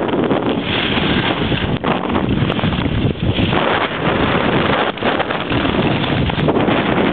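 Wind rushing over the microphone of a camera carried by a skier moving downhill: a loud, steady rush with a few brief dips.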